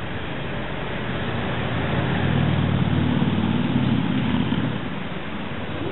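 An engine passing by, a steady low drone that swells about two seconds in and fades toward the end, over a steady hiss.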